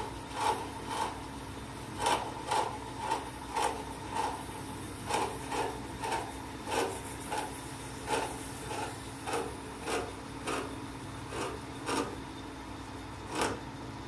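Lathe parting tool cutting into a turning gunmetal bar, parting off a bush. The cut comes as short scraping pulses, about two a second with a few pauses, over the steady hum of the running lathe.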